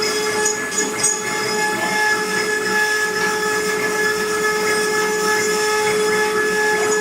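CNC wood-carving router running, a steady whine over a hiss.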